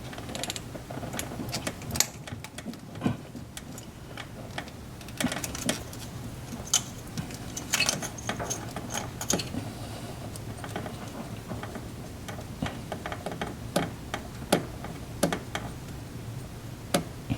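Irregular clicks, taps and small knocks of hands handling parts and tools while refitting components on a car, over a faint steady low hum.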